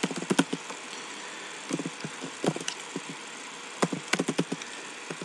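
Keystrokes on a computer keyboard, several short runs of sharp clicks over a steady background hiss.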